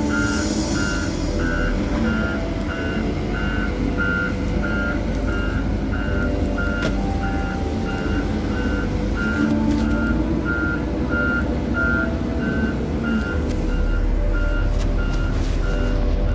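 Reversing alarm on a heavy machine, beeping at one pitch about three times every two seconds, over a diesel engine running steadily.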